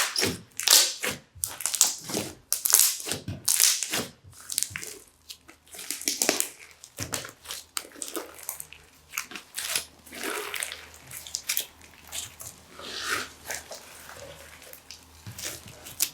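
Crunchy slime being squeezed and worked by hand, giving rapid crackling and popping. The crackles come thick for about the first four seconds, then thin out into scattered pops.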